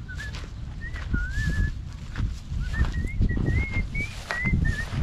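Footsteps and rustling on a grassy dirt path with a heavy low rumble of wind and handling on the microphone, over which a run of short, wavering high whistles comes and goes, most of them near the middle and end.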